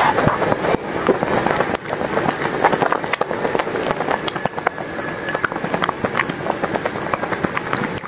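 Chewing of an ice cream bar with a hard dark coating: a dense run of small crackles and wet mouth clicks as the shell breaks up and is chewed.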